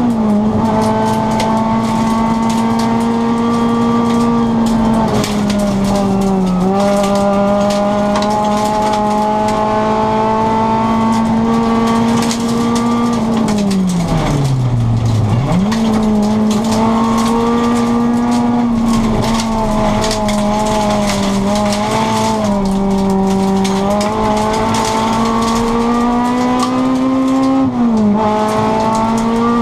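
Rally car's engine heard from inside the cabin, held at high revs under full throttle on a gravel stage, with brief dips at gear changes. About halfway through, the revs fall away for a couple of seconds and then snap back up. Throughout, gravel hisses and stones rattle under the car.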